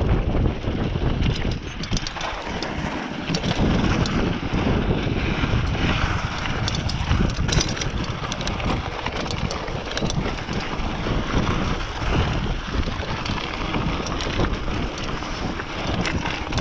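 Wind buffeting the microphone during a fast mountain-bike descent, with tyres rolling over a dirt trail and the bike rattling over bumps in frequent short clicks.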